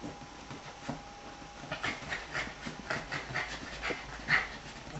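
A Pyrenean Shepherd dog panting quickly, about four short breaths a second, settling into a steady rhythm about two seconds in.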